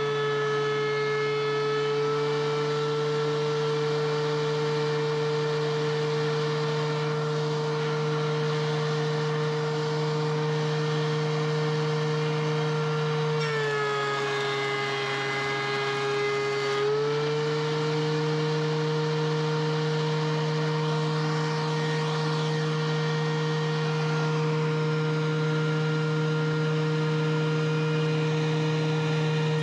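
DeWALT DW735X benchtop thickness planer running with a very loud, steady high whine. About 13 seconds in, its pitch drops for about three seconds as the cutterhead takes a 1/16-inch pass on a spruce-pine-fir 2x4, then comes back up.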